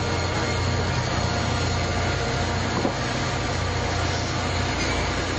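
Silver commuter train rolling past along the platform, close by: a steady low rumble and running noise from the passing cars.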